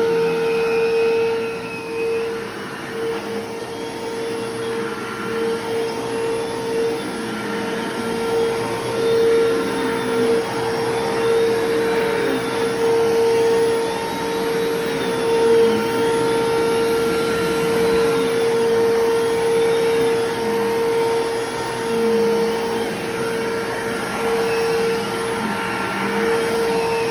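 Bissell Lift-Off bagless upright vacuum cleaner running steadily with a constant motor whine, its loudness swelling and dipping slightly.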